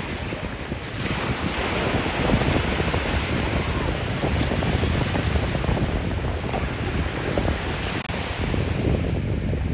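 Ocean surf washing with wind buffeting the phone's microphone, a steady rushing noise with low rumbling gusts.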